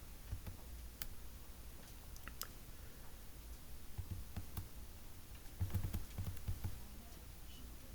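Scattered computer mouse and keyboard clicks, a second or more apart, with soft low thumps a little past the middle.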